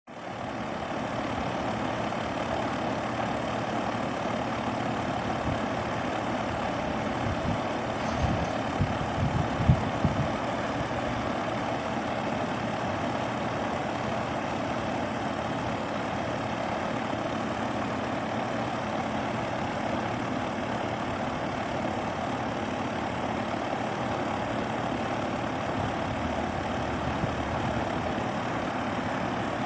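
SmartComfort heat pump running steadily, a constant machine hum and rush of air. A brief cluster of low thumps comes about eight to ten seconds in.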